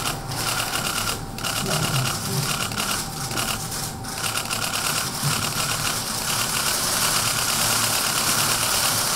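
Many press cameras firing their shutters at once, a dense, continuous rattle of rapid clicks over the low murmur of a crowded room.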